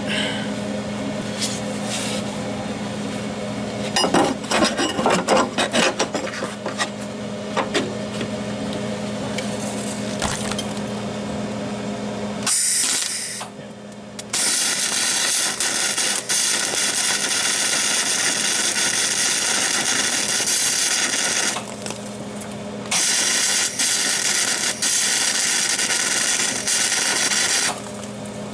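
Steady hum of a rebuilt Hobart gas MIG welder's transformer with some clatter of handling, then from about twelve seconds in three long pulls of the trigger: the wire feeder running and the arc crackling. The wire is bouncing off the 16-gauge plate instead of fusing, with the welder on a low 68-volt setting.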